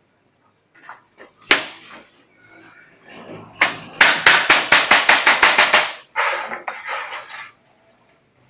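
Hammer blows on galvanized sheet metal: a quick run of about a dozen strikes at roughly six a second, after a single sharp knock shortly before. The sheet rattles briefly after the blows.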